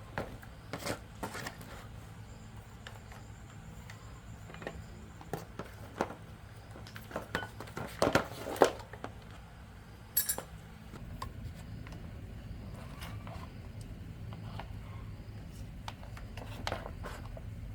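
Metal tools and machine parts clinking and knocking in irregular separate strikes, busiest around the middle, over a low steady hum that gets louder about two-thirds of the way through.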